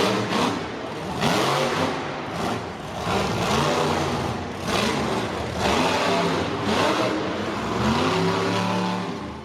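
Monster truck engine revving repeatedly, its pitch climbing and falling back several times in quick succession.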